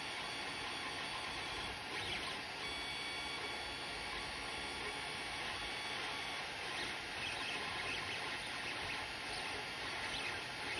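Creality Ender 3 3D printer running a print: its stepper motors whine in short tones that shift in pitch as the print head and bed move, over a steady hiss from its cooling fans.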